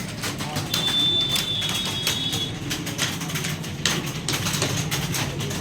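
Computer keyboard keys clattering in fast, irregular typing over a steady low hum, with a thin high whistle for a couple of seconds near the start.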